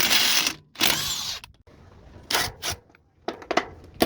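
Power tool run in short bursts: two longer runs of about half a second each, then several quick bursts.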